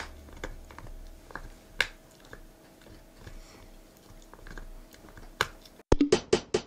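Faint irregular clicking and crunching of a Jack Russell terrier chewing. Near the end, music with sharp, rhythmic wood-block-like strikes starts and is the loudest sound.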